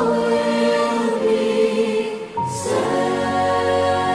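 Background music: a choir singing held chords, moving to a new chord with a low bass coming in about two and a half seconds in.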